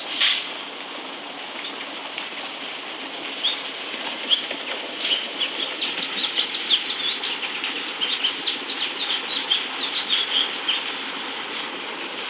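Gas backpack leaf blower running with a steady hum, its noise dropping off just at the start after a sharp click. Birds chirp in quick short calls over it from about three seconds in until near the end.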